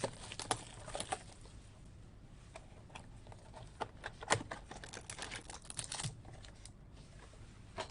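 Trading cards and their wrappers being handled while a box is opened and sorted: light, irregular clicks and crinkles of card stock and packaging, a few of them sharper.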